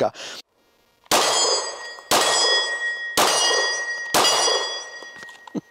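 Four shots from a Glock pistol fitted in a Recover AR-15-style carbine conversion, about one a second. Each shot is followed by a ringing clang that dies away over about a second.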